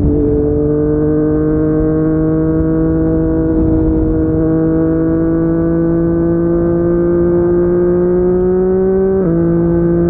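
Yamaha MT-09's inline three-cylinder engine through a Yoshimura R55 slip-on exhaust, pulling through one gear with its pitch slowly rising. About nine seconds in the pitch drops suddenly as it shifts up. Wind and road noise run underneath.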